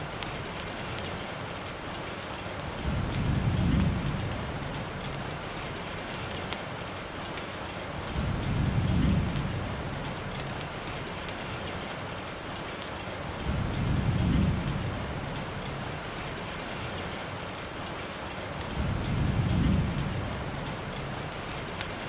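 Steady rain, with a low rumble of thunder swelling and fading four times, about every five seconds.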